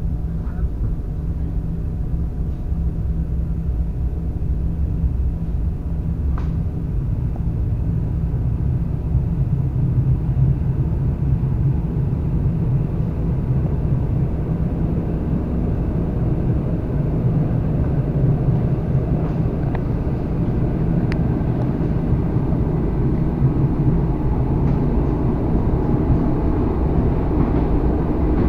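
ED4M electric train running along the line, a steady low rumble of wheels on rail heard from inside the carriage, growing slightly louder over the stretch.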